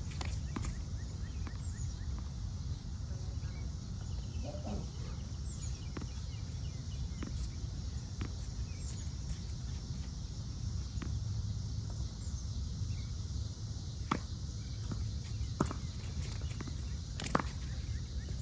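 Tennis racket strings striking a ball and the ball bouncing on a hard court: sharp pops spread through the rally, three loud ones about a second and a half apart near the end, over a steady low wind rumble.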